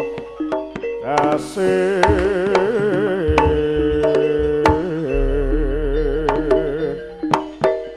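Live Javanese jaranan music: a wavering melodic line over rapid hand-drum strokes, with deep low notes that hold for about two seconds midway.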